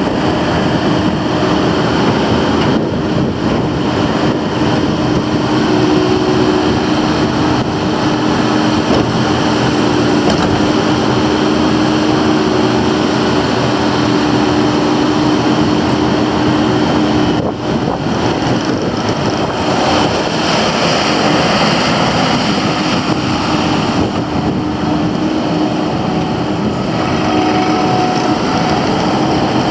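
Kubota SVL95-2S compact track loader's diesel engine running steadily, dipping briefly about two-thirds of the way through, with a brighter, higher-pitched rush of machine noise for several seconds after.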